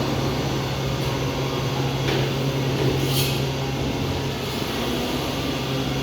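Haitian MA530GIII SE two-colour injection moulding machine running, a steady low hum from its hydraulic drive, with a short hiss about three seconds in.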